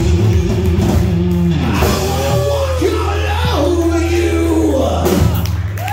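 Live rock band playing electric guitar, bass guitar and drums, loud. Low notes are held under high notes that bend up and then down in pitch several times in the second half.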